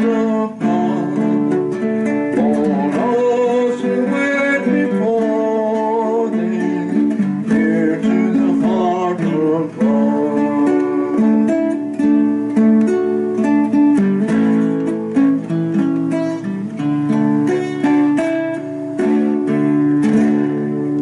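Worship song with acoustic guitar and a singing voice, the guitar holding chords under a wavering sung melody.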